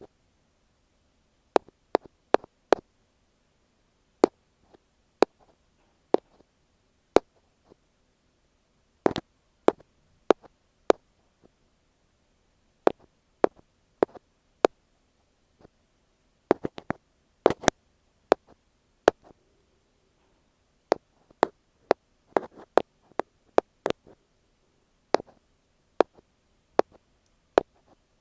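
Ear pick tapping directly on an earphone microphone: sharp, close clicks at an irregular pace, single taps with pauses between and a few quick flurries of taps.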